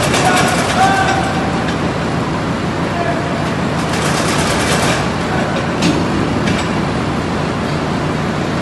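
Dnepropress P152 800-tonne open-die forging press at work on a red-hot billet: a loud, steady machine drone with a few sharp metallic clatters, the longest about four to five seconds in.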